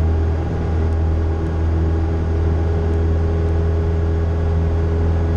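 Cessna 172's piston engine and propeller running steadily at full takeoff power as the plane rotates and lifts off, heard as a steady drone inside the cabin.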